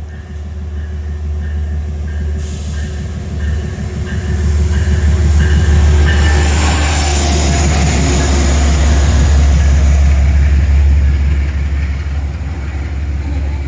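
Train passing close by through a station: the rumble of engine and wheels on the rails builds over the first few seconds, stays loud through the middle and eases off near the end.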